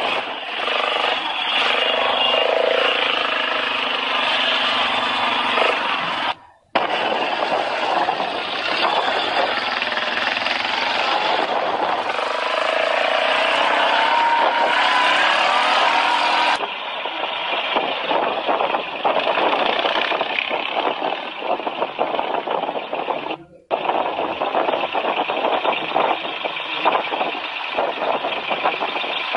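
Quad bike (ATV) engine running while being ridden, with a dense rushing noise over it and a pitch that climbs as it revs up about halfway through. The sound drops out briefly twice.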